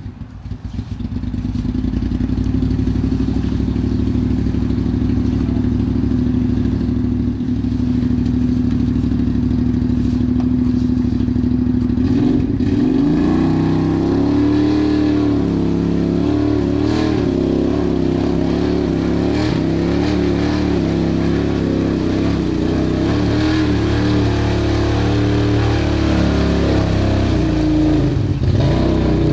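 Side-by-side UTV engine running, held steady for the first dozen seconds, then revved with its pitch wavering up and down as the machine works in deep mud.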